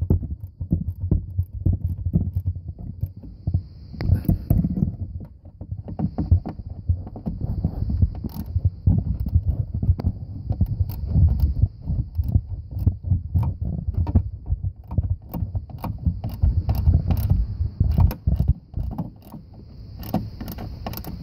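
Hand ratchet with a Torx bit socket clicking in quick runs as bracket bolts are tightened, amid knocks and handling noise of the tool against the parts.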